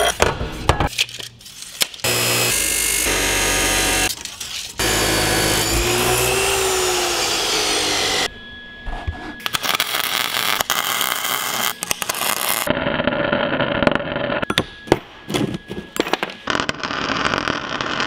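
A bench grinder grinding a steel tube, then, about eight seconds in, the crackle of an electric arc welder laying short tack welds on the steel tubing, stopping and starting between tacks.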